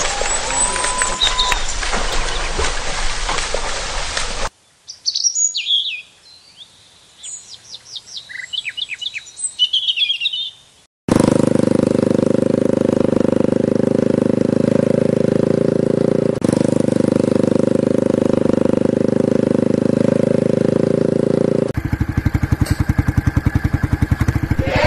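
Water splashing for about four seconds, then birds chirping. From about eleven seconds in, a motorcycle engine runs steadily, and near the end it drops to a pulsing idle.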